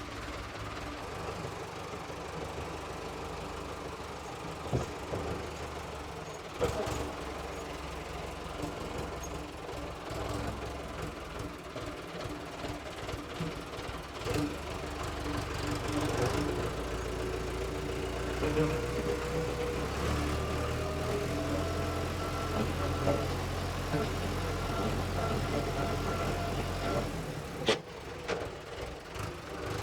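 Diesel tractor engine running steadily with a low rumble, its engine note rising and holding higher from about halfway through. A few sharp knocks or rattles are heard.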